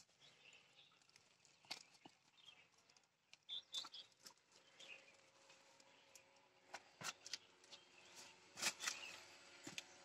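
Near silence broken by scattered faint clicks and scuffs of shoes on rock and dry leaves during a scramble up a boulder, a few louder ones near the end.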